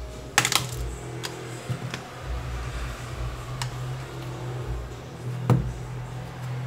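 Plastic clips of a Samsung Galaxy J7 Core's midframe snapping loose as the frame is pried off the phone: a handful of sharp clicks and creaks. The loudest cluster is about half a second in and another comes about five and a half seconds in, over a steady low hum.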